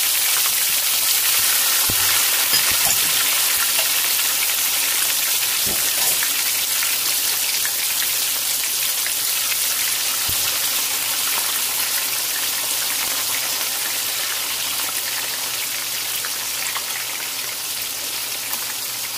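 Sliced vegetables, tomatoes among them, deep-frying in hot oil: a steady, dense sizzle that slowly grows quieter.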